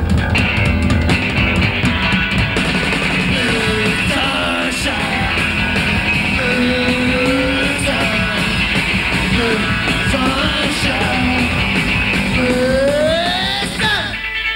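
Psychobilly band playing live and loud, with electric guitar and a singing voice over a full band. The bass and drums drop out about fourteen seconds in.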